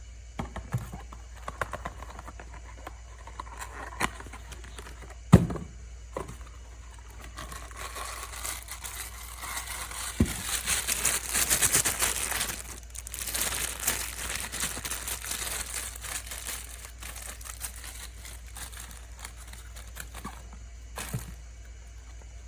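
Packaging being handled and opened by hand: scattered taps and clicks, a sharp knock about five seconds in, and a stretch of crinkling and rustling from about ten to thirteen seconds in.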